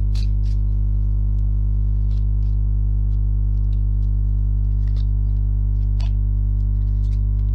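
Background music held on a steady low sustained drone, with a few faint short clicks scattered over it.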